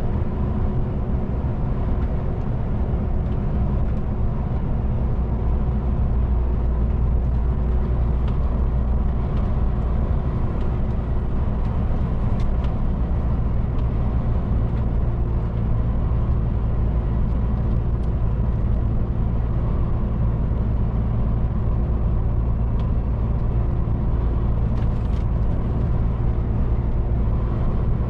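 MAN TGX 440 truck's straight-six diesel engine and tyres heard from inside the cab while cruising on an open road: a steady low rumble with no change in pace.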